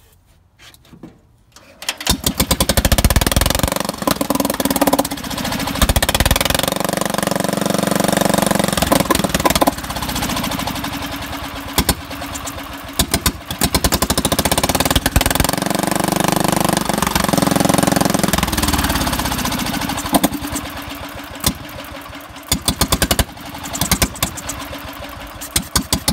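The Wisconsin engine of a 1953 Country Squire garden tractor catches about two seconds in and runs roughly through a worn-out muffler, surging up and down, then sputters in short spurts near the end. It runs only while fluid is sprayed into the carburetor: the carburetor is not feeding it fuel.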